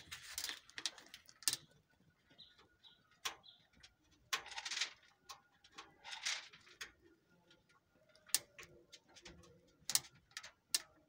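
A rabbit feeding from a plastic bowl: irregular sharp clicks and crunches, with a few short rustles.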